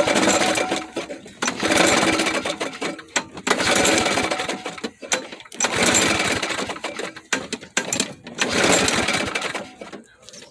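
Lawn mower's small engine being pull-started about five times, each pull cranking it over for a second or so without it catching: a no-start that the owner puts down to not enough priming.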